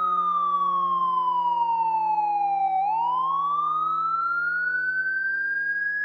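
Fire truck siren wailing: its pitch falls slowly for about three seconds, then turns and climbs back up, over a steady low hum.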